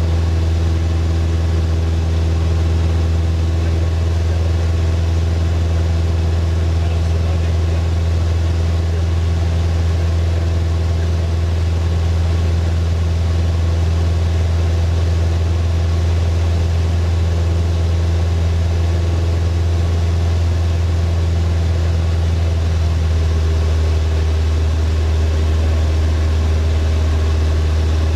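Light floatplane's piston engine and propeller droning steadily in flight, heard from inside the cockpit, with a slight shift in pitch near the end.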